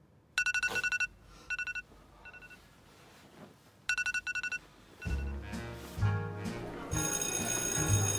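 Mobile phone ringing with a rapid trilling bell-style ringtone, two rings about three and a half seconds apart. About five seconds in, music with a heavy bass beat starts and becomes the loudest sound.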